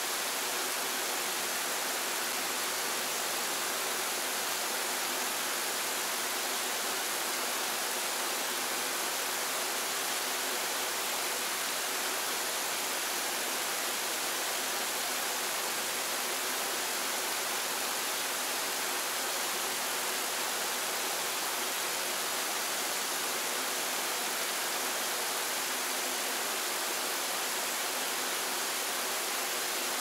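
Waterfall: a steady, even rush of falling water, unchanging throughout, with its weight in the hiss rather than the low rumble.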